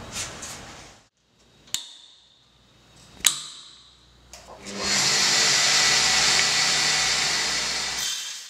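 Two sharp clicks about a second and a half apart as the suction-cup stand of a tile core drill is clamped down, then the electric core drill motor runs steadily for about three seconds and stops shortly before the end.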